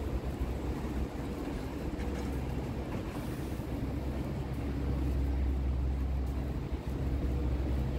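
Low, steady mechanical rumble of urban background noise, growing louder about halfway through and easing slightly near the end.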